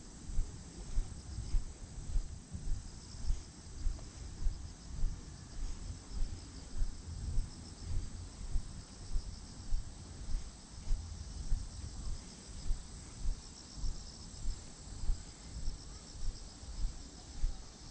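Steady, pulsing high trill of insects such as crickets, with dull low thumps of footsteps about twice a second from a walker carrying the camera.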